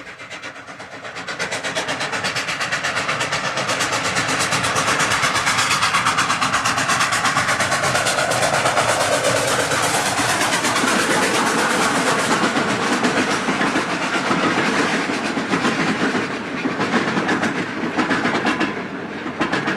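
A train running past at speed with a fast, even beat, building over the first few seconds and easing off after about twelve seconds.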